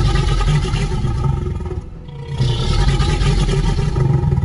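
Two long dinosaur roars, given as the Triceratops's call, the second beginning about two seconds in.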